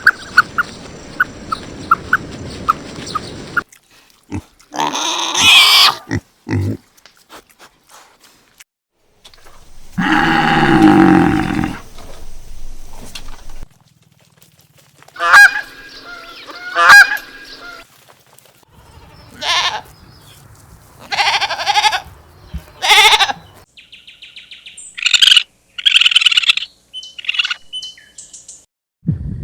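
A series of different animal calls, one after another with short pauses between them, some low and some high-pitched.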